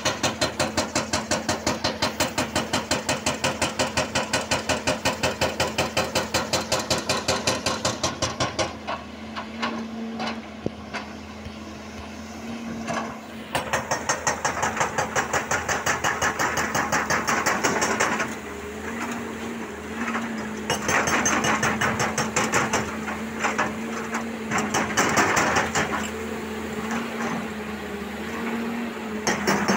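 Hydraulic rock breaker on a Volvo EC210B excavator hammering rock in rapid, evenly spaced blows over the steady hum of the excavator's diesel engine. The hammering stops about eight seconds in, starts again for a few seconds, then goes on in shorter, uneven bursts.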